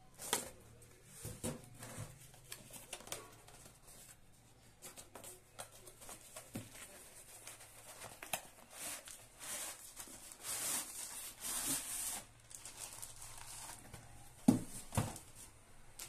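Cardboard box and plastic packaging being handled and opened: irregular rustling and crinkling, with two sharp knocks about half a second apart near the end, the loudest sounds.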